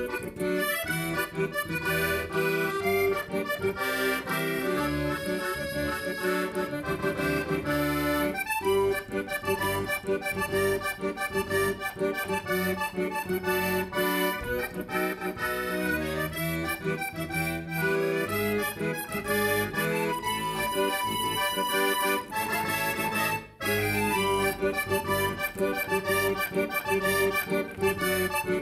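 Music on a free-reed instrument with an accordion-like sound, a melody over held chords, with a brief break about four-fifths of the way through.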